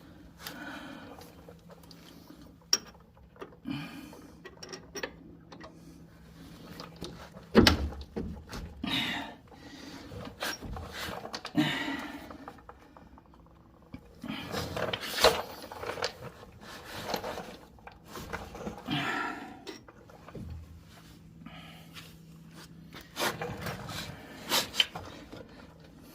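Scattered metal clinks, knocks and rustling of hand work, fitting new bolts to a pickup's front strut mount. A faint steady hum runs underneath at the start and again near the end.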